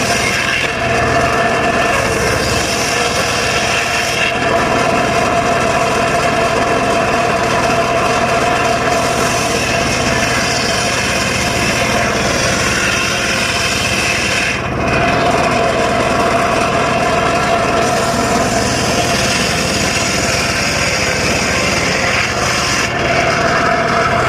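Engine-driven circular saw running steadily and cutting dry teak wood, a continuous high whine over the noise of the cut, briefly dipping about fifteen seconds in.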